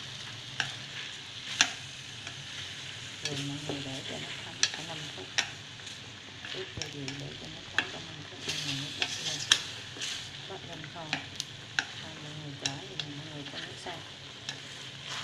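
Marinated catfish pieces sizzling in an aluminium pot as they are turned with chopsticks, the chopsticks clicking sharply against the metal pot at irregular moments. The fish is being seared in its marinade of fish sauce and sugar before water is added for braising.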